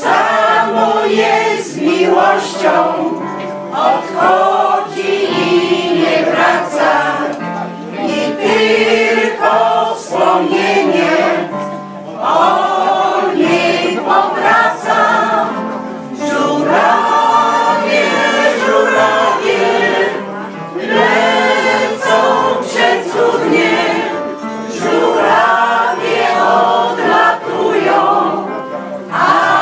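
Mixed choir of women's and men's voices singing a song together in harmony.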